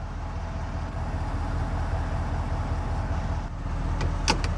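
2011 Ford F-250 Super Duty's 6.7 L Power Stroke turbo-diesel V8 idling steadily, heard from inside the cab, with a few sharp clicks near the end.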